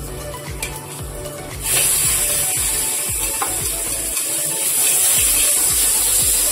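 Raw sliced meat dropped into a hot oiled wok, starting to sizzle loudly and suddenly about two seconds in, the frying hiss holding steady as it is stirred with a spatula near the end.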